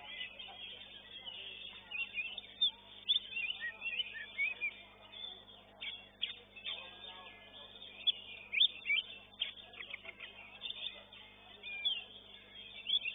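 Oriental magpie-robin (kacer) singing a fast, varied run of short chirps and whistled notes, with loud notes scattered throughout.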